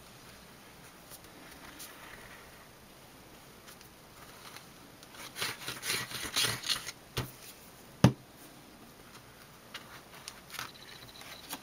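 Handling of cardstock at a craft table: a stretch of scratchy rubbing and rustling, then two sharp knocks about a second apart, the second the loudest.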